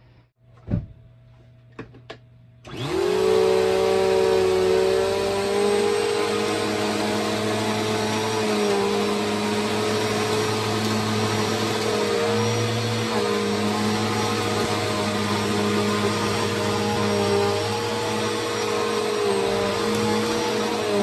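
Bissell PowerForce Helix bagless upright vacuum cleaner switched on, its motor whining up to speed and then running steadily while it sucks up shredded paper. A thump and a few clicks come just before it starts.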